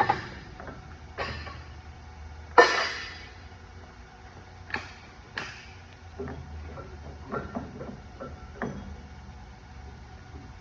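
Scattered knocks and clanks of tools and parts being handled during a lathe setup: a handful of sharp knocks, the loudest about two and a half seconds in with a short ring, then lighter clicks. A faint low steady hum runs underneath.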